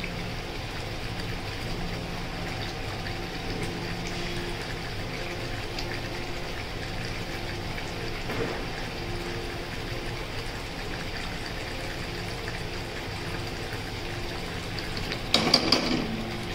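Thick onion and tomato masala bubbling and sputtering steadily as it simmers in a steel kadai, its oil separating out, the sign that the masala is cooked. A short loud clatter comes near the end.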